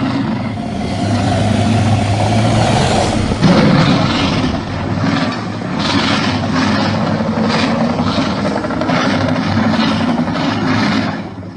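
Made-up Purussaurus creature sound effect: one long, low, rough growl of about eleven seconds that pulses unevenly in its second half and fades out at the end.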